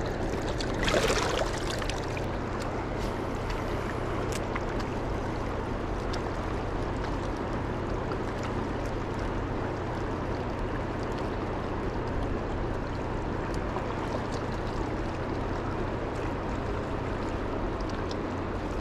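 Steady rushing of a river's strong current flowing past a rocky bank, with a short louder noise about a second in.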